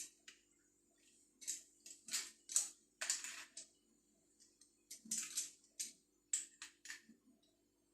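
Irregular clicks and short scraping rasps of plastic plumbing fittings being handled and screwed together, a longer scrape about three seconds in and another about five seconds in.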